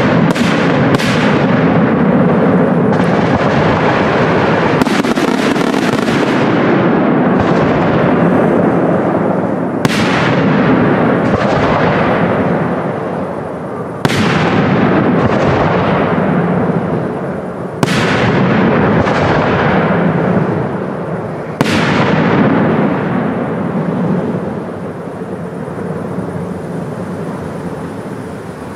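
Aerial fireworks shells bursting in quick succession, sharp bangs over a dense, continuous rumble of bursts and echoes. Single loud reports stand out about every four seconds in the middle, and the barrage dies away over the last few seconds.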